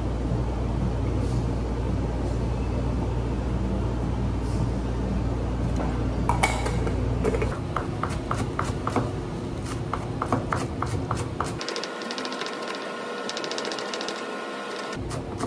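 A steady low machine hum, then a kitchen knife chopping green onions on a plastic cutting board. The blade taps begin about halfway through and turn into a fast, even run of strokes near the end.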